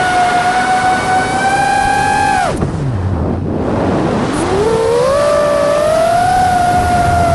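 High-revving motorboat engine with rushing wind and water. About two and a half seconds in, the revs drop sharply to a low rumble as the throttle is let off, then climb steadily back to a high whine over the next couple of seconds.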